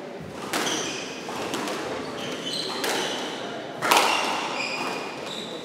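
Squash rally: the rubber ball cracks off rackets and the court walls several times, the loudest hit about four seconds in, each echoing in the court. Short high squeaks of court shoes on the wooden floor fall between the hits.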